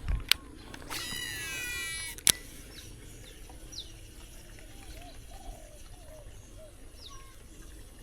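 A fishing reel whirring for about a second as line pays out on a cast, its whine gliding in pitch and ending in a sharp click. Birds call afterwards, with short high chirps and low calls.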